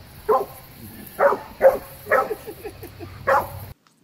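A dog barking in five loud, short barks spaced unevenly, as it plays at the spray from a garden hose. The barking cuts off suddenly near the end.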